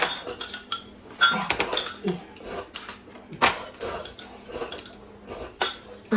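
Metal spoons clinking and scraping against glass cups of corn soup, with three sharper clinks spread through.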